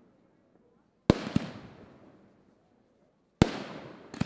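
Aerial firework shells bursting. A sharp bang comes about a second in, with a second one just after, and each trails off in a long echoing tail. Another bang comes past the middle and a further one near the end.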